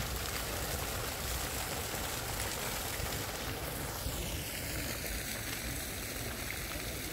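Fountain jets splashing steadily into a stone basin, a continuous rushing of falling water.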